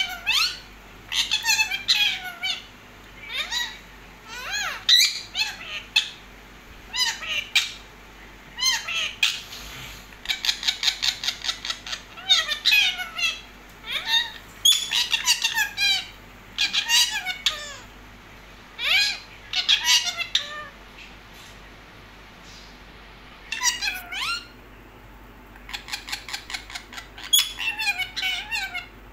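Pet parakeets squawking and chattering in short bursts, some as quick runs of repeated notes, with brief pauses between.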